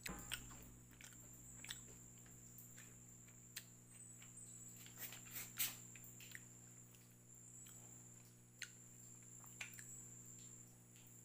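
Faint, scattered clicks and taps of the plastic parts of a Motowolf motorcycle phone holder being handled and taken apart, over a low steady hum.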